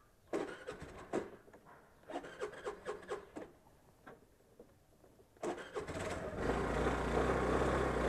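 Clicks and knocks of handling, then a motorcycle engine is started about five and a half seconds in and settles into a steady idle.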